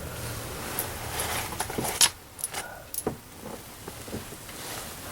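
Small metal objects clinking and jingling, with a few sharp clicks in the middle, the loudest about two seconds in.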